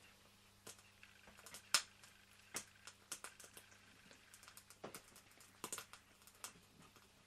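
Scattered light clicks and taps of a small metal model steam traction engine being handled, turned in the hands and set down on a wooden bench, over a faint steady hum.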